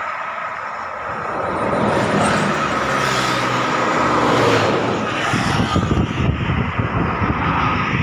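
A bus driving past on the road, its engine growing louder to a peak about halfway through and then giving way to a rough rumble of passing traffic.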